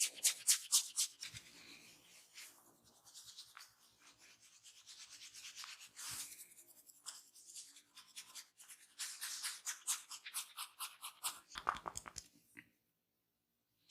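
Hands rubbing briskly over bare skin in a massage: a rapid, even swishing of about six strokes a second. It eases into slower, softer rubbing, picks up speed again, and cuts off near the end.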